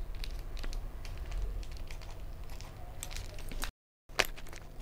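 Scissors snipping through parcel packaging, with crinkling and rustling of the wrapping as it is cut open: a run of small, irregular clicks and crackles. The sound breaks off for a moment near the end.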